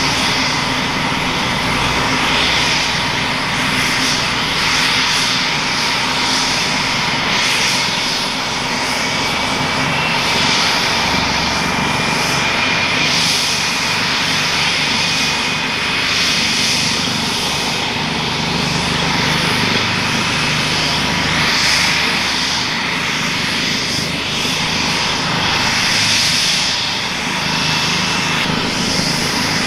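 Boeing AH-64D Apache's twin General Electric T700-GE-701C turboshaft engines running on the ground just after the second engine start, with the main rotor turning: a steady turbine whine over a dense rushing noise, with one faint whine slowly climbing in pitch.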